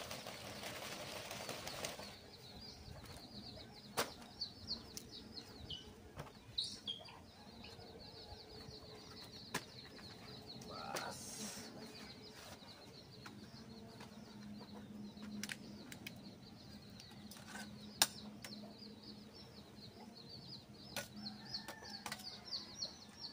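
Water splashing for about two seconds as something is rinsed, then scattered light clicks and knocks of handling, over steady high chirping of birds in the background.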